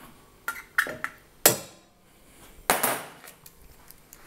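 Metal tools and clamps being handled at a workbench: a run of sharp clicks and knocks, with two louder clanks about one and a half and three seconds in, then a few light ticks.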